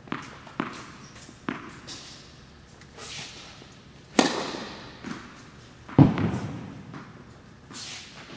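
Tennis ball bounced a few times on an indoor hard court, then two louder impacts about two seconds apart, the second a low thud. The hits ring on in the echo of the hall.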